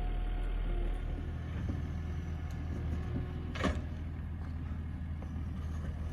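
Takeuchi skid steer's diesel engine running steadily with a low hum, with one brief sharp noise about three and a half seconds in.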